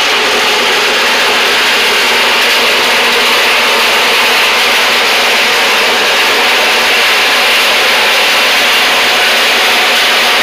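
Cordless reciprocating saw running steadily at full speed, its blade cutting through the sheet-steel wall of a 55-gallon black steel drum.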